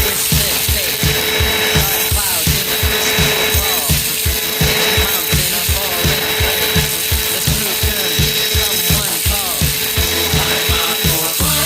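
Cyclone-type vacuum cleaner running: a steady whine with a rushing hiss of air. Under it a regular low pulsing, about three beats a second.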